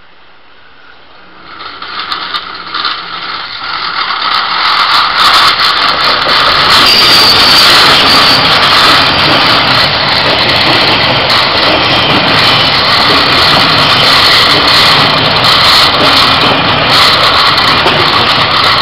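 Taiwan Railway DR1000 diesel multiple unit passing at close range after leaving a tunnel: the sound of its underfloor diesel engines and wheels on the rails grows over the first few seconds, then holds steady and loud as the cars go by.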